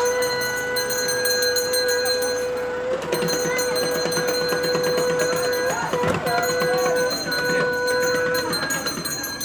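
A loud, steady single-pitch tone like a horn, held for a few seconds at a time and broken off briefly a few times, over the murmur of a crowd.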